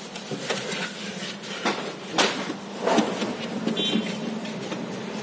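Scattered knocks and rustles as the sheet-metal trunk of an old Toyota Corolla GL is handled and inspected, with a brief high squeak near the end.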